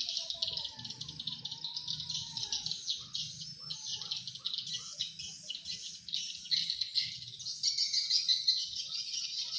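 Dense, continuous high-pitched chirping of edible-nest swiftlets, many rapid chirps overlapping without a break, with scattered lower short calls mixed in.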